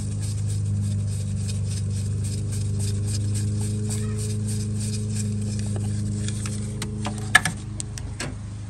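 A steady low hum runs throughout, with light rapid ticking over it and one sharp click about seven seconds in.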